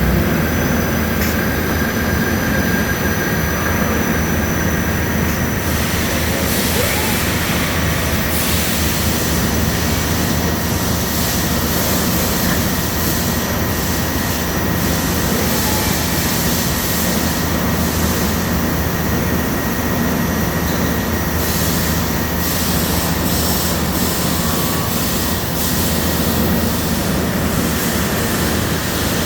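Steady running noise of CNC machine tools in operation: a constant loud hiss and rumble with a faint high whine. The hiss grows brighter twice, about six seconds in and again past twenty seconds.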